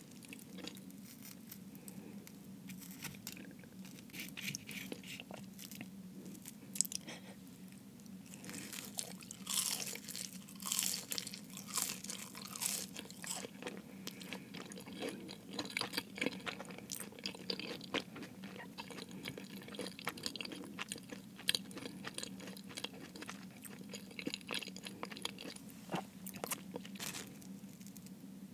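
Close-miked chewing of a Jamaican beef patty: the flaky browned pastry crust crunches and crackles steadily between the teeth, with a few sharper, louder crunches standing out.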